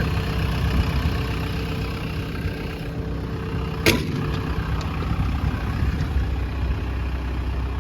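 JCB JS160 NLC excavator's diesel engine idling steadily, with one sharp click just under four seconds in.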